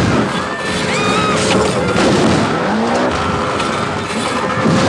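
Action-film soundtrack of a speedboat chase: a speedboat's outboard engine running hard, with crashes and music mixed in.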